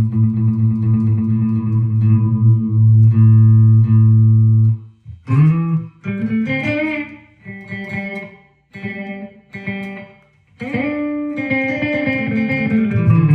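Electric guitar, a Gibson Les Paul through a Marshall amp, played through an Electro-Harmonix #1 Echo digital delay pedal with its feedback turned down. A low note rings for about five seconds and stops. Then come short picked notes with bends and gaps between them, and near the end a long bent note is held.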